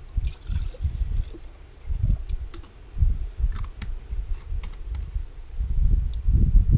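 Wind buffeting the microphone in uneven gusts, with a few light clicks and taps from camp cookware being handled.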